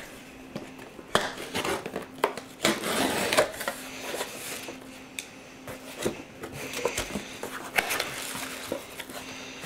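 A cardboard shipping box being opened by hand: packing tape slit with a blade, flaps pulled open and cardboard handled, making scattered clicks and rustling scrapes. A faint steady hum runs underneath.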